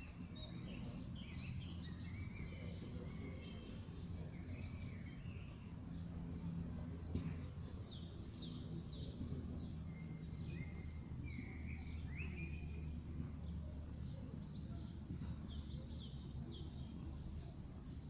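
Small songbirds chirping repeatedly in short whistled notes, over a steady low background hum.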